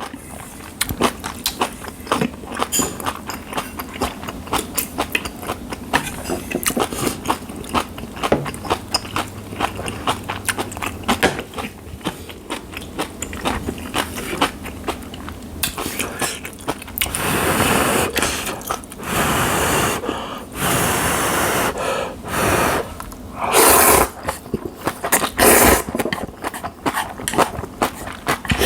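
Close-miked eating of spicy seafood jjamppong ramen: wet chewing and mouth clicks, then, from a little past halfway, noodles slurped in several long pulls of a second or two each.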